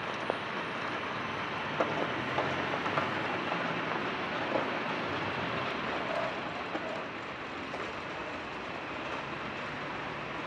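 Steady city street traffic noise with a vehicle engine running low underneath, and a few sharp clicks in the first few seconds.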